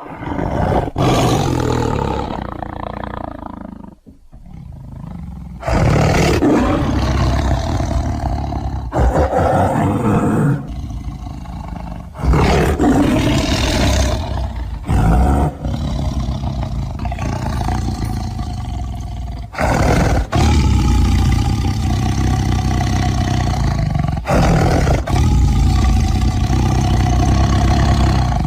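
Tiger roaring again and again: long, loud roars that break off abruptly every few seconds, with a brief quieter stretch about four seconds in.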